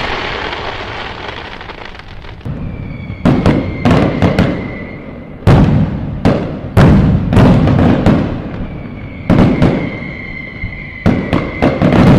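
Fireworks going off: a fading rumble, then from about three seconds in a run of sharp bangs and crackles, about a dozen of them. High steady whistles sound through part of the run.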